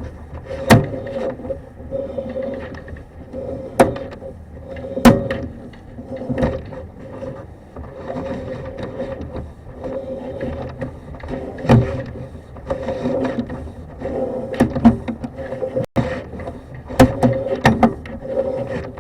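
Sewer inspection camera rig working a drain line: a steady hum with irregular knocks, clicks and scrapes as the push cable is fed down the pipe.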